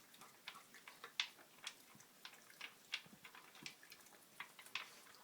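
A dog eating from a slow-feeder bowl: faint, irregular clicking and ticking of food and teeth against the bowl, a few clicks a second.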